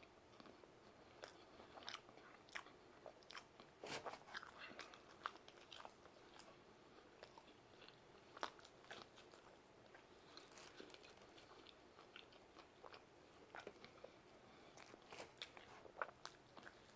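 Faint, irregular clicks and crunches of a man chewing a mouthful of pizza.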